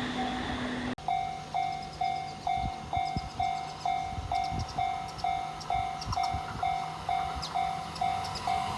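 Japanese railway level-crossing warning bell ringing an evenly repeated single-pitch stroke, about two and a half strokes a second, signalling an approaching train. About a second in the sound cuts abruptly and the bell comes in louder.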